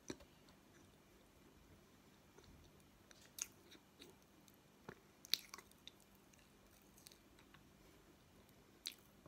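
Quiet chewing of a mouthful of raw cornstarch chunks: a handful of short, soft crunches and mouth clicks, a few seconds apart, the loudest a little past five seconds in.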